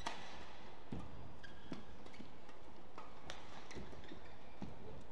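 Badminton rally: a quick series of sharp racket strikes on the shuttlecock, about one a second, with players' court shoes squeaking and thudding on the court mat between shots.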